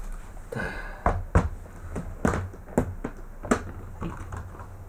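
A plastic cat carrier is set down on a wooden floor and its lid is unclipped and opened: a string of sharp knocks and clicks, about six in four seconds, the loudest about a second and a half in.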